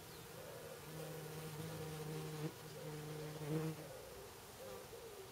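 A flying insect buzzing close by: a low, steady buzz starts about a second in, breaks off for a moment, and stops just before four seconds in. A fainter, higher wavering buzz runs under it.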